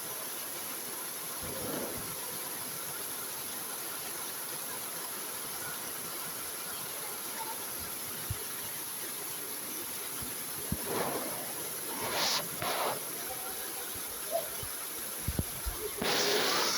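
Heavy rain falling steadily, an even hiss, with a few brief louder surges of noise, the longest starting near the end.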